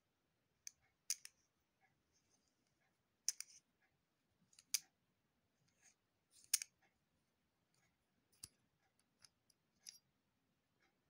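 Metal parts of a Pentacon microscope camera adapter being turned and unscrewed by hand: light, sharp metal clicks with a few short scrapes, irregularly spaced about a second or two apart.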